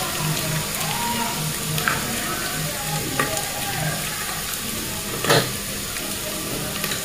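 Onions and red chilli powder sizzling in hot oil in an aluminium pressure cooker, a steady frying hiss. A few light clinks of a spoon on the steel spice tins, the loudest a little after five seconds in.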